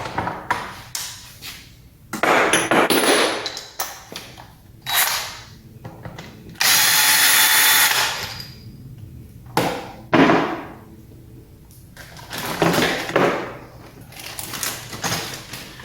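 A power driver running in short bursts, once held steady for about a second and a half in the middle, as it spins out the last crankcase bolt of a Sea-Doo two-stroke engine. Tools and parts clatter between the bursts.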